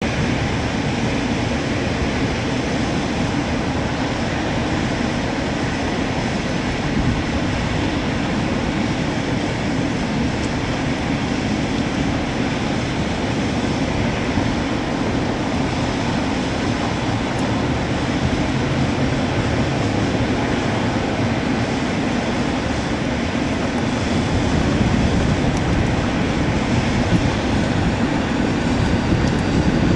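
Steady low engine drone of a motor vehicle, rising slightly in level near the end, with no siren.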